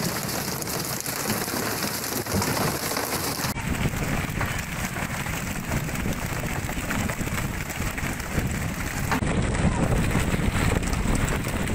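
Wind and water noise on a fishing boat at sea, a dense, steady patter like rain. About three and a half seconds in it changes abruptly to a lower, rumbling noise.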